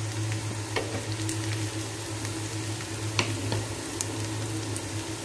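Chopped garlic and onion sizzling in hot oil in a nonstick frying pan, with scattered pops, over a steady low hum.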